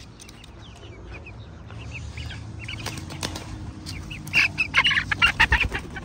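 Hens being chased toward their coop: a few short calls, then a loud flurry of wing-flapping about four seconds in as a hen scrambles off across the yard.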